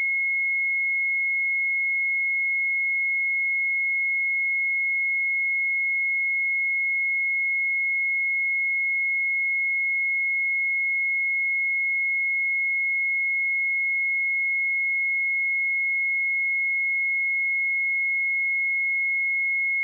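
Pure 2168 Hz sine-wave test tone, a single steady high-pitched tone held at constant level without any change.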